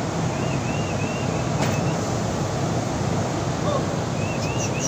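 Steady low mechanical hum under a noisy hiss, with a run of about four short high chirps about half a second in and another near the end.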